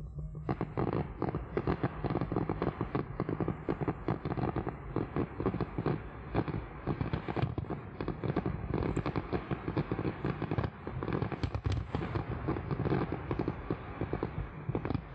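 Fireworks display: a dense, unbroken barrage of rapid cracks and bangs that begins about half a second in and does not let up.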